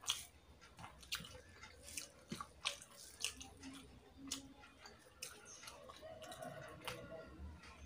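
Close chewing and mouth smacks of someone eating rice and curry by hand, with soft irregular clicks as fingers mix the rice in a steel bowl.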